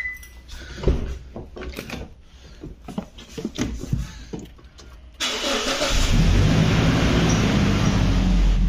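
Car door handling and a few knocks as someone climbs into the driver's seat, then about five seconds in a Toyota SUV's engine starts with a sudden burst of sound and settles into a steady idle.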